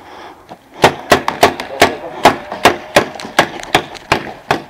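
Paintball pistols firing in a rapid string of sharp pops, about five shots a second, starting about a second in.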